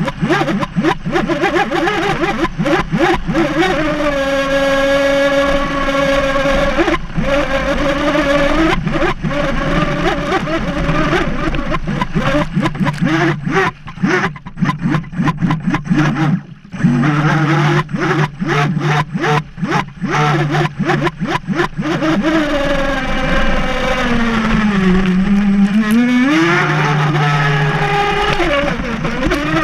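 Onboard sound of a Graupner Mega Dragstar III RC speedboat running flat out on a Turnigy 3974-2200KV brushless motor fed from a 3S LiPo. The motor whine shifts in pitch, sinking and then climbing back about three-quarters of the way through. Constant slaps and splashes of the hull and spray on choppy water run over it.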